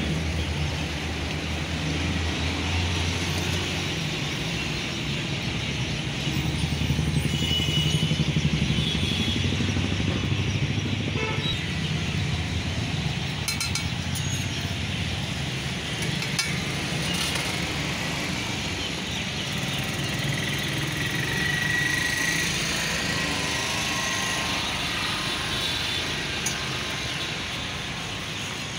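Egg omelette sizzling in oil on a flat steel griddle, over a steady low rumble of motor traffic, with a few sharp clicks of utensils on the griddle.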